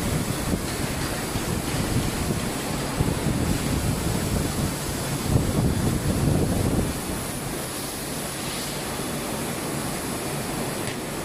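Steady factory machinery noise: a broad rushing hiss over a low rumble, with a faint high whine. The rumble is heavier and uneven for the first seven seconds, then settles lower and steadier.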